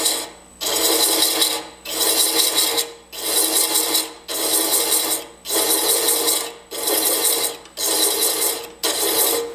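Hand thread chaser rasping as it cuts external threads on a spinning wooden tenon, with the lathe at slow chasing speed of about 320 rpm. The cut comes in about eight passes of roughly a second each, with short breaks between, in very dry wood, over the lathe's faint steady hum.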